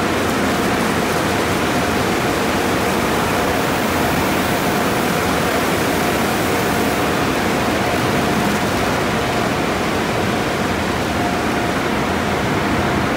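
Conveyor tunnel car wash at work on a car: water spray jets and foam applicators hissing against the body and spinning cloth wrap brushes sweeping it, a steady rushing wash of noise with a faint steady whine underneath.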